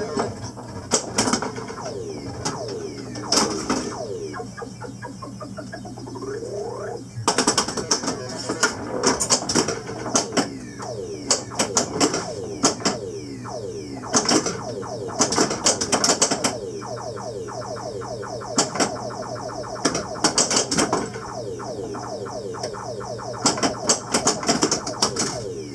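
Williams Black Knight pinball machine in play: rapid clicks and clacks from its flippers, bumpers and other solenoids, mixed with its electronic sound effects, many of which sweep down in pitch. A steady hum runs underneath.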